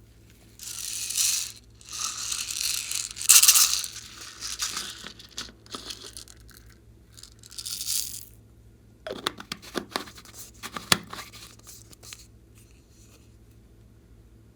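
Hands working slime: several bursts of hissy, sticky tearing noise through the first four seconds and again near eight seconds, then a run of sharp crackling pops from about nine seconds in.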